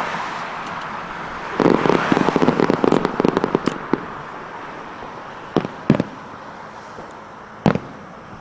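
Aerial firework shells bursting: a hissing crackle at first, then a dense run of rapid crackling cracks for about two seconds, followed by three separate sharp bangs in the second half.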